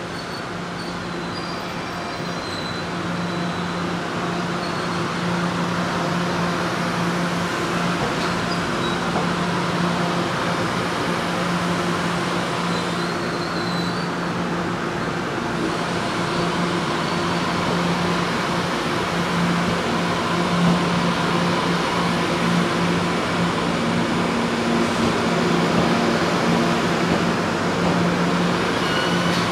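TEMU1000 Taroko Express electric train moving past the platform, a steady hum of its electrical equipment over rolling wheel and rail noise. It grows louder over the first several seconds and then holds.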